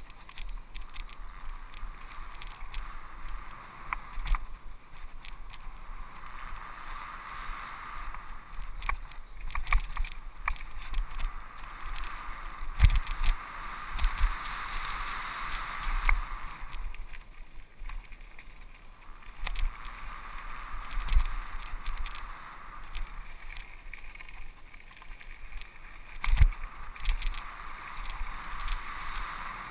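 Mountain bike riding over dirt singletrack: a steady rushing of tyres and wind on the microphone that rises and falls with speed, broken by frequent rattles, knocks and low thumps as the bike hits bumps and roots.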